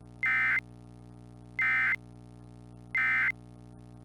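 Emergency Alert System SAME end-of-message data bursts: three short, identical bursts of warbling digital tones, about a second and a half apart, signalling the end of the alert. A faint low steady drone runs underneath.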